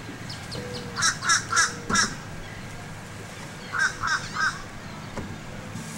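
A bird calling in short runs: four quick calls about a second in, then three more near four seconds.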